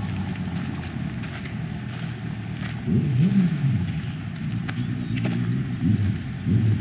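Outdoor ambience: a steady low rumble with scattered light clicks, swelling louder about three seconds in and again near the end.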